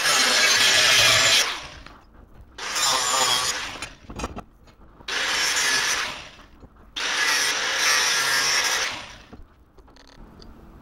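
Angle grinder with a thin cut-off disc cutting into a steel strip held in a vise, in four bursts of one to two seconds, the disc running down between them. A short metallic clatter about four seconds in.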